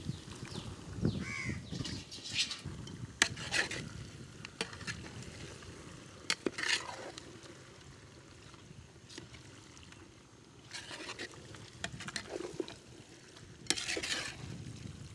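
Country chicken pieces being stirred in a cooking pot with a ladle, giving irregular scrapes and knocks against the pot, with light frying underneath.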